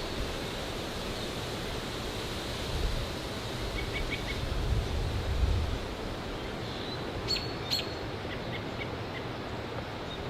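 Steady wind noise that swells in low rumbling gusts, with small birds giving short chirps several times, two in quick succession about seven and a half seconds in.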